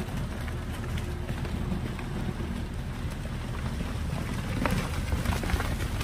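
Steady wind noise on the microphone, a low rumble with a few faint clicks near the end.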